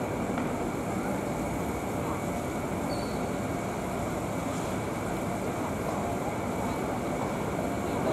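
Steady city traffic noise from buses and trams moving, with no single sound standing out.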